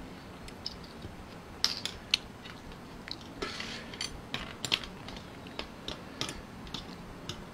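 Metal spoon and fork clicking and scraping against blood cockle shells and a metal tray, a quick irregular run of sharp clinks and ticks.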